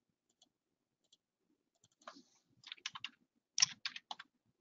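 Computer keyboard being typed on: a quick run of light key clicks starting about two seconds in, in a few short clusters, with the loudest keystrokes a little before the end.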